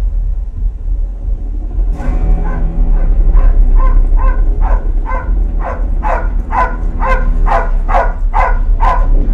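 Movie soundtrack playing through a home-theater system with a Rythmik FVX15 15-inch ported subwoofer: a constant deep bass rumble. From about two seconds in, a dog barks in quick repeated barks, about three a second, growing louder.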